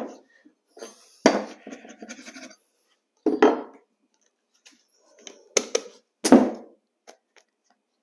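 Carpet knee kicker being bumped with the knee: four sharp thumps a second or two apart, each with a short rattle, as the kicker's teeth stretch the carpet sideways across a stair step onto the side tack strip.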